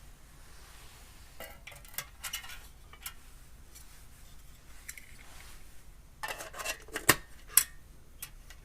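Small hard objects, most likely metal, being handled: sharp clinks and clatter in two short bursts, about a second and a half in and again about six seconds in, the loudest knocks near the end.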